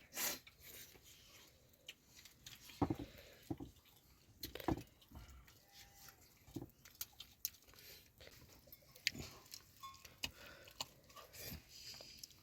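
Faint chewing with scattered small clicks and knocks.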